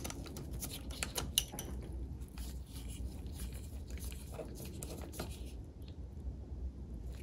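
Faint, irregular small metal clicks and scrapes as a 5/16 socket unscrews a grease fitting from a MerCruiser Alpha One gimbal housing. The socket is turned on a ratchet at first, then spun by hand. The clicks thin out about five and a half seconds in.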